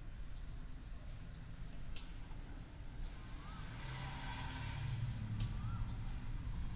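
Low, steady background rumble with a couple of sharp clicks and a few faint short chirps.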